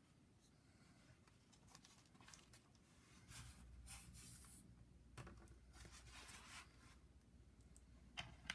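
Near silence with faint rustling and a few light clicks of a small action figure and its parts being handled, the sharpest clicks near the end.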